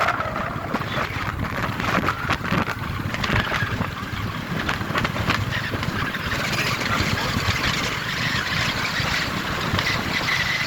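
Wind rushing over the microphone and road noise on a moving motorcycle at highway speed.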